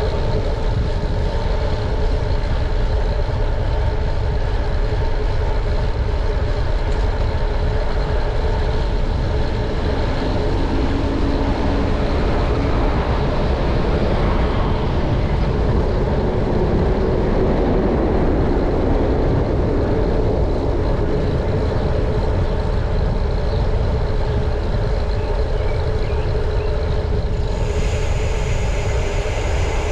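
Street traffic heard from a moving bicycle: a steady low rumble of wind on the microphone under the steady hum of nearby motor vehicles. Near the end a higher, steady whine cuts in suddenly.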